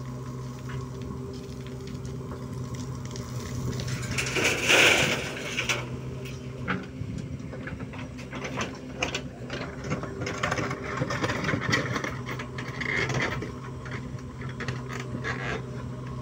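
JCB 3DX backhoe loader's diesel engine running steadily under load while the backhoe bucket digs earth, with repeated clattering and knocking of the bucket and arm against soil and stones. A loud rushing noise rises and falls about five seconds in.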